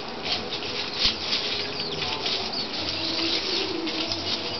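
Farmyard ambience: a dense, irregular crackling rustle with a couple of faint high peeps from chicks about two and a half to three seconds in.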